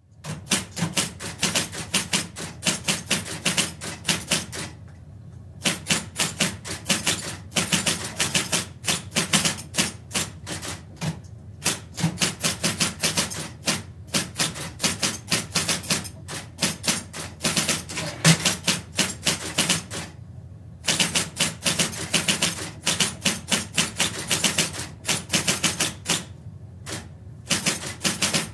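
Electric typewriter typing at a medium pace, heard from about four metres away: quick runs of key strikes broken by three short pauses. A steady motor hum carries on through the pauses.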